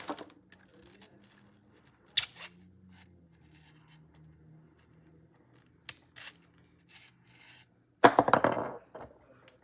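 Small plastic fidget toys and their packaging being handled: a few sharp clicks and taps, then a louder burst of rustling and clattering near the end.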